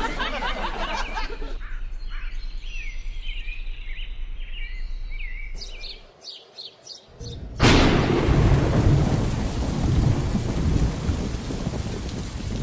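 Light high chirping, then a little past halfway a sudden loud onset of heavy rain with thunder that carries on steadily.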